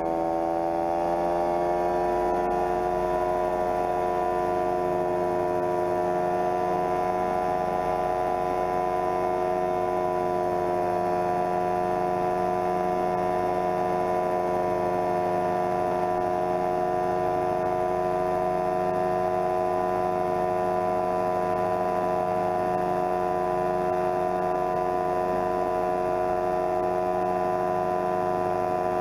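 Homemade coaxial helicopter running steadily in a low hover, its drive giving a loud, steady whine made of several tones. The pitch dips and climbs back about a second in, then holds.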